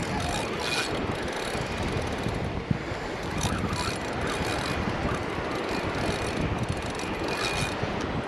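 Wind buffeting the microphone over a steady rushing wash of beach surf, with a few brief hissing swells.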